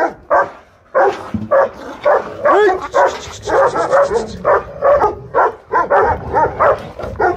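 Dogs barking and yelping in quick succession, about two to three short barks a second, as they scuffle and wrestle in a dog fight.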